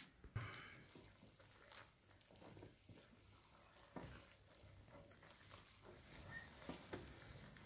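Hands mixing flour and water into bread dough in a large metal basin: faint, irregular squelching and rustling, with a few soft knocks.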